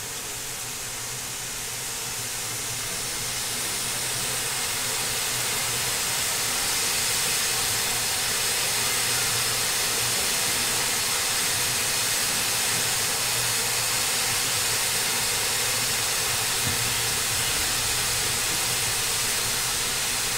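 Small steam tank locomotive blowing off at its safety valves: a steady hiss that grows louder over the first several seconds and then holds.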